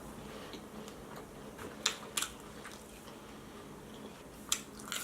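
Close-up mouth sounds of someone eating vegan chicken nuggets and tater tots: quiet chewing, with a few sharp crisp clicks, two close together about two seconds in and another near four and a half seconds.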